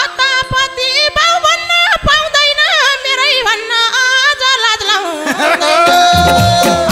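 Nepali dohori folk band playing an instrumental interlude: a lead melody with quick trills and ornaments over keyboard, with a few scattered drum strokes, until the madal drum's rhythm comes in near the end.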